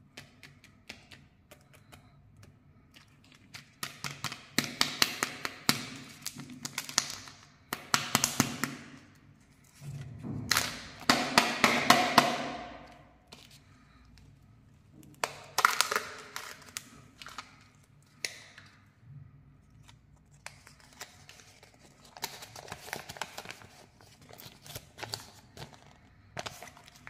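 Kinder Joy plastic egg being opened by hand: its foil seal peeled back with crackling and tearing, and the toy's plastic packet crinkled and torn open, with sharp clicks and taps of plastic. It comes in several bursts a few seconds long, the loudest about halfway through.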